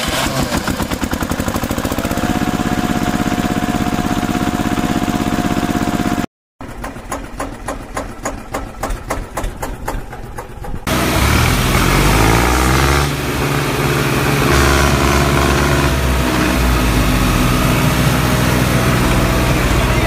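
Diesel tractor engine running: a fast, even chugging, a brief break about six seconds in, then a slower, uneven thumping, and from about eleven seconds a louder steady run whose pitch rises as it revs up.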